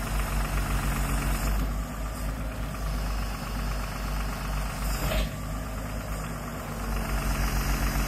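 Hitachi EX200 excavator's diesel engine running, pulling harder at times as the hydraulics work the boom and bucket. The machine is being tested on its newly swapped pilot lines, changed from John Deere (SAE) to Cat (ISO) control pattern. A brief sharp sound comes about five seconds in.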